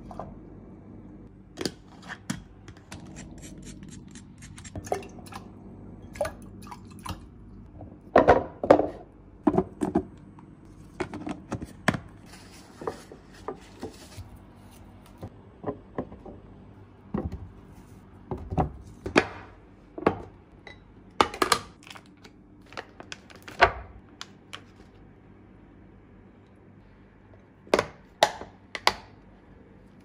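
Kitchen handling sounds: irregular knocks, clinks and taps as glass containers, vegetables and utensils are picked up and set down on a wooden cutting board.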